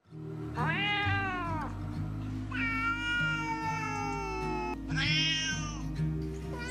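Cats meowing: three long, drawn-out meows, the middle one the longest and slowly falling in pitch, over quiet background music.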